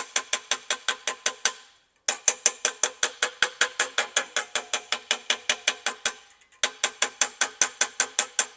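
Rapid, even tapping of a rawhide mallet on a collapsed brass trombone slide tube seated over a steel dent rod, about six or seven taps a second, each tap ringing briefly. The tapping stops twice for a moment, near two seconds in and again about six seconds in. This is the tube being tapped down onto the rod to round out the collapse.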